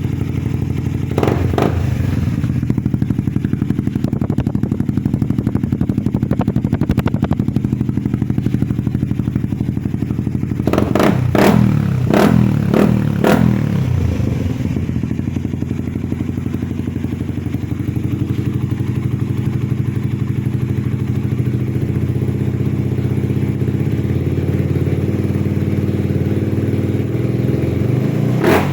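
Motorcycle with an Apido aftermarket exhaust pipe idling, blipped once near the start and revved in a few quick blips a little before halfway, with sharp pops from the pipe; another rev starts right at the end.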